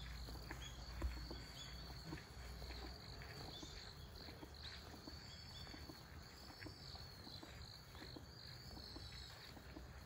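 Faint outdoor ambience: small birds chirping in short, high, irregular calls over a low steady rumble, with a single light knock about a second in.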